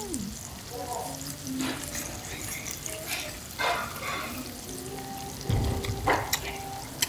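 Beef, scallops, shrimp and bean sprouts sizzling steadily on a hot tabletop griddle, with short clicks of chopsticks and dishes. A low muffled thump comes about five and a half seconds in.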